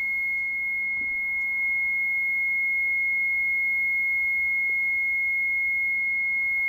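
Mitsubishi Shogun's brake warning sounding a constant, high-pitched beep with no break. It signals a fault in the hydraulic brake booster (HBB), which the mechanic believes is caused by its electric pump motor.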